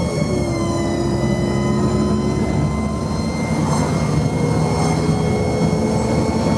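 Wright-bodied bus under way, its engine and drivetrain running with a steady hum and several whining tones that drop in pitch about a second in, then hold steady.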